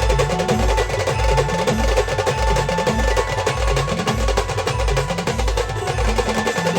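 Live band music with no singing: a deep bass drum beats steadily, a little under two beats a second, under fast rattling percussion and a few held instrumental notes.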